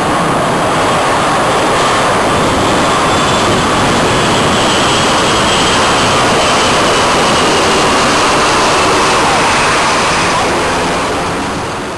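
Airbus A340-300's four CFM56 turbofan engines at go-around power as the jet climbs away overhead: a loud, steady rush with a faint whine falling in pitch midway, fading near the end.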